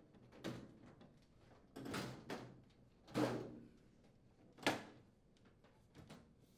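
Metal microwave cabinet cover being set onto the chassis and slid into place: a scrape, then a knock, then a sharper knock a second and a half later as it seats.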